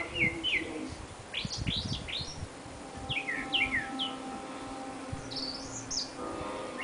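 Small bird chirping: quick runs of three or four short, high chirps that slide down in pitch, repeated every second or two.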